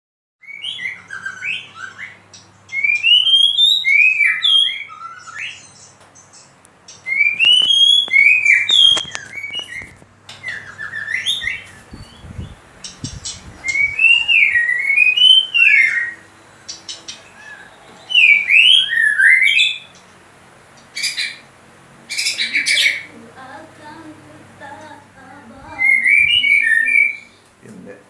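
White-rumped shama (murai batu) in full song: loud phrases of rising and falling whistles, a new phrase every few seconds, with a burst of fast repeated harsh notes about three-quarters of the way through.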